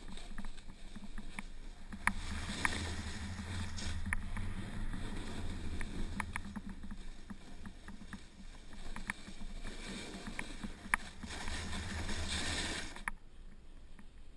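Skis sliding and scraping over wind-crusted off-piste snow, with wind rumbling on the microphone and scattered sharp clicks. The sound drops away suddenly about a second before the end as the skier comes to a stop.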